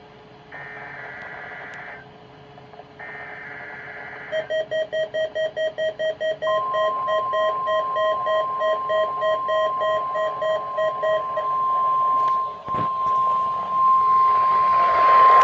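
NOAA Weather Radio test alert. Two short bursts of screechy digital SAME header data come first, then rapid electronic beeping for several seconds. A steady 1050 Hz warning alarm tone starts about six seconds in and overlaps the beeping, then holds on alone.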